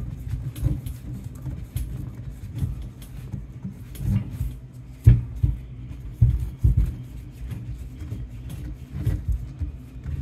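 Hand-turned oil filter cutter working around a spin-on oil filter can: irregular creaks, scrapes and knocks as the can is rotated against the cutter, with the sharpest knock about five seconds in.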